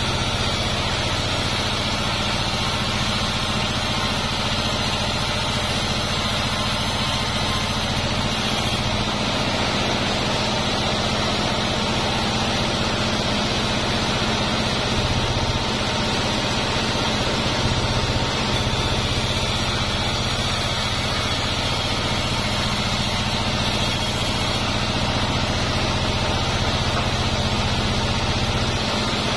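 Large band sawmill running steadily while durian wood is sawn: a constant low drone with a hiss above it.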